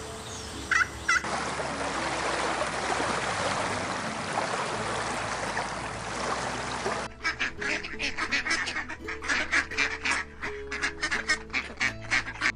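A flock of birds calling with goose-like honks: a dense crowd of calls for several seconds, then a quick run of separate honking calls, several a second.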